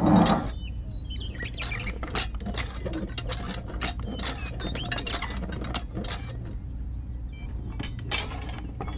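Irregular small clicks and clinks as a wooden model plow frame is handled and hooked onto a model tractor's spring-loaded metal hitch, with a louder clatter right at the start and a low steady hum underneath.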